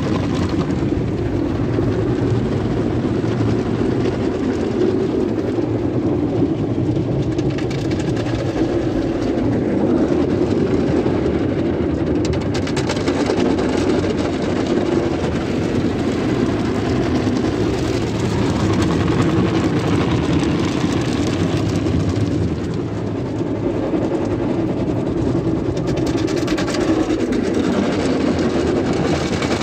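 Spinning foam brushes of a Sonny's tunnel car wash scrubbing over the car's body and windows, with water spray, heard from inside the cabin as a steady, dense wash noise.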